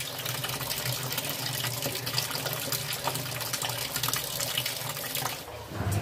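Water pouring from the inlet of a Sanyo top-loading washing machine into its tub as it fills: a steady splashing with a low hum under it. The flow is a thin one because mains water pressure is low. The splashing fades near the end.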